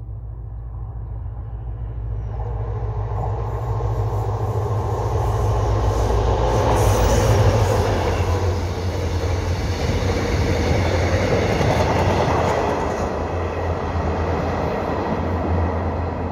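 Korail diesel locomotive hauling a Mugunghwa-ho passenger train past at speed: a low engine drone with the rolling noise of the train. It builds up, is loudest through the middle, and eases a little as the train goes by.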